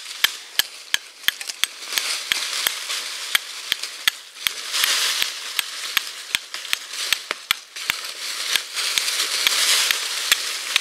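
Fire steel from Atelier Brise Vercors struck again and again down a hand-held flint: sharp strikes about three a second with a rasping scrape, throwing sparks onto charred jute cloth to catch an ember.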